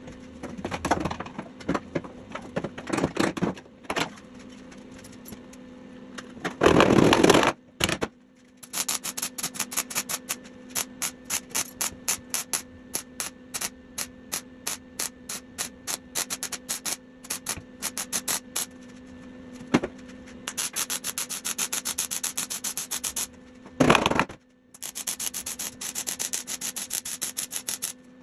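MIG welder stitch-welding sheet steel on a truck cab's corner and rocker seam: short crackling bursts at about three a second, with a longer continuous bead near the end and a steady hum underneath. Two louder rushes of noise stand out, about 7 and 24 seconds in.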